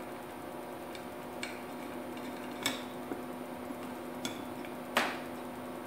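A handful of light metal clicks and clinks from a nut being fitted on the end of a threaded steel tension rod on an aluminum-tube piggy bank with wooden end plates, about five in all, the loudest near the end. A steady faint hum lies under them.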